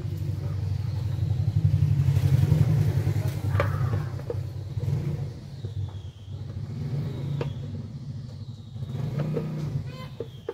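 Steady low rumble like an engine running, swelling about two seconds in, with a few plastic clicks and knocks as the top housing of a mixer grinder is pressed onto its motor base by hand.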